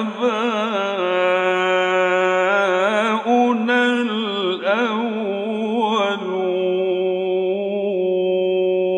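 A male Quran reciter chanting in the slow, melismatic Egyptian mujawwad style, drawing out long sung notes with a wavering pitch. Near the end the voice breaks off with a falling pitch and dies away.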